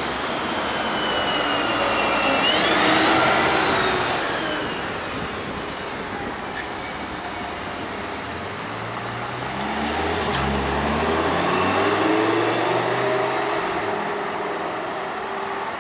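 Lamborghini Huracán EVO Spyder's V10 engine running as the car drives past at low speed, then revving up in steps as it pulls away about nine seconds in, over street traffic noise.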